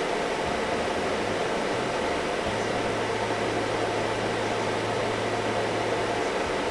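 Car air conditioner blower fan running steadily and rushing air out of the vents, which are now blowing cold. A low hum under it grows stronger about two and a half seconds in and drops away near the end.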